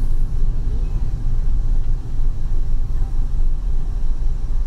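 Steady low rumble of a van driving, engine and road noise heard from inside the cabin.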